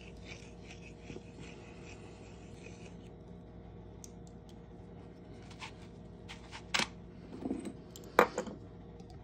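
Handheld deburring tool scraping the inside edge of a punched hole in a pure copper coin blank, taking off the sharp burr left by the punch, in a run of short strokes over the first few seconds. Later come a few sharp clicks and knocks, the loudest near the end.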